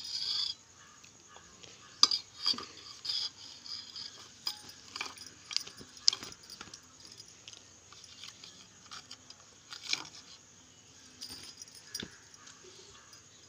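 Metal spoon clinking and scraping against a stainless steel bowl in scattered taps, a second or more apart.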